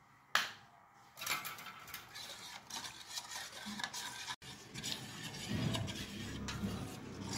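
A thin metal spoon stirring a runny batter of gram flour, yogurt and water in a stainless-steel bowl, scraping and clinking against the steel, after a single sharp knock about a third of a second in. This is the mixing of salt and asafoetida into the kadhi base.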